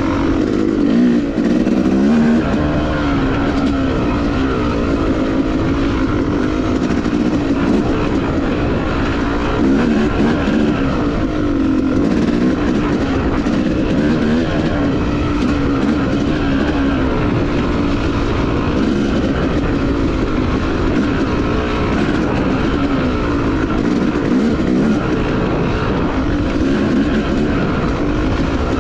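Yamaha YZ250X two-stroke dirt bike engine running under way without a break, its pitch rising and falling again and again as the throttle is worked.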